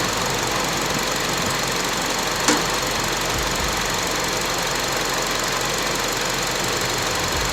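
A 2005 Honda CR-V's 2.4-litre four-cylinder engine idling steadily under an open hood. A single sharp click comes about two and a half seconds in.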